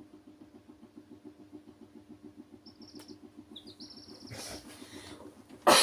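Chicks peeping in short, high calls from about halfway through, over a steady low hum that pulses several times a second. Near the end comes one loud bump.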